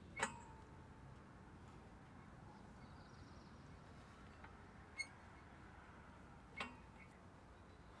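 Near silence, with three faint sharp clicks: one just after the start, one about five seconds in and one a second and a half later.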